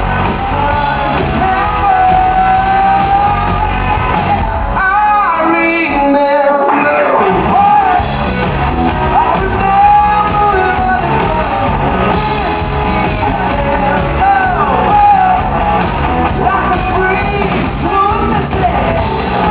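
Live rock band playing at a sound check, with a sung and partly shouted lead vocal in a large hall. About five seconds in, the drums and bass drop out for a few seconds, leaving the voice and higher parts, then the full band comes back in.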